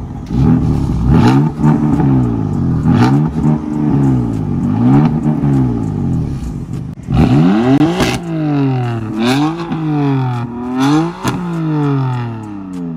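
2015 BMW M4's 3.0-litre twin-turbo inline-six being revved at a standstill, about seven quick throttle blips that rise sharply and fall back, with a short crack near the top of several of them.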